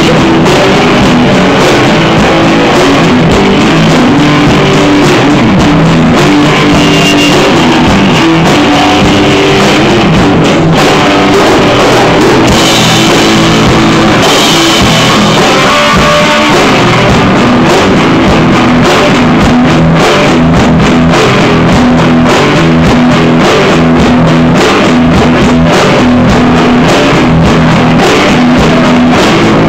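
Live rock band playing loud: electric bass and a drum kit with cymbals, recorded up close in a small room.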